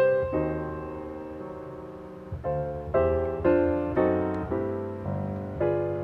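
Background piano music: single notes and chords struck and left to ring, fading between strikes.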